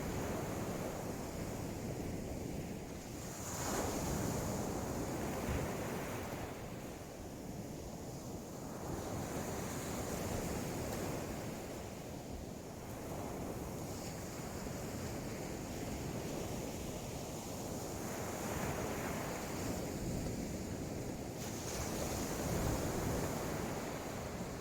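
Sea waves washing onto the beach, a steady rush that swells and eases every several seconds, with wind buffeting the microphone.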